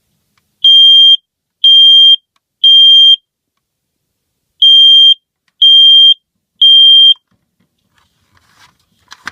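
First Alert smoke alarm sounding its test in the Code 3 (temporal-three) pattern: two sets of three loud, high-pitched, steady beeps, each about half a second long, with a pause of about a second and a half between the sets.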